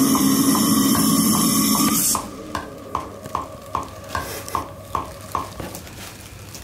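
Heavily distorted metal track playing back loudly, which cuts off about two seconds in. After it a click track ticks steadily, about two and a half clicks a second.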